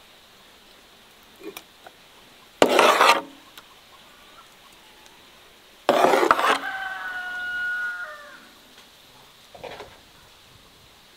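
A metal spoon scraping thick cherry plum sauce across the bottom of a large metal pan, in two loud, short scrapes and a fainter one near the end. Just after the second scrape, a rooster crows once, a call lasting about a second and a half.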